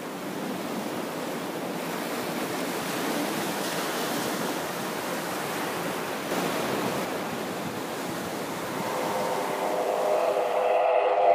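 Ocean surf washing onto a sandy beach: a steady rushing of breaking waves that swells and eases. In the last couple of seconds a steady droning hum joins in and grows louder.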